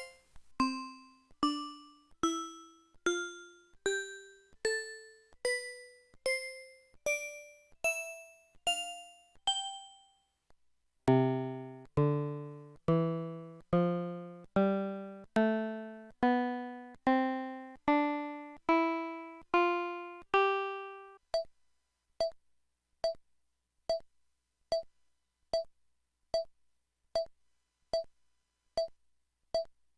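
Pantech U-5000 mobile phone system tones, taken straight from the handset's audio output: a run of short electronic keyboard-like notes, about two a second, each a step higher than the last. After a one-second break a second run starts lower and climbs the same way. From about two-thirds in it changes to a string of identical short beeps, a little under two a second.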